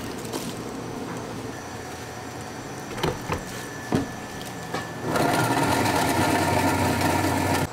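A few sharp clicks and knocks as the jar is handled, then about five seconds in a commercial countertop blender starts and runs steadily at high speed, blending ice for a black sesame shake.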